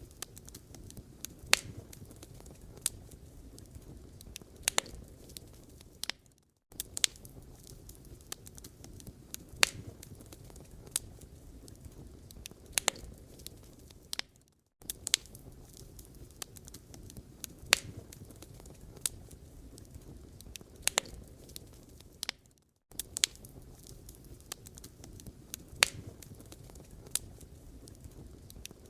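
Wood fire burning in a fireplace, crackling with irregular sharp pops and snaps over a low, steady rumble. The sound breaks off to silence for a moment three times, about every eight seconds.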